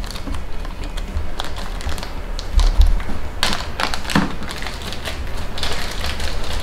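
Clear plastic bag crinkling and rustling in the hands as it is opened around a small card case, with scattered small clicks and taps and a few low handling bumps about two and a half seconds in.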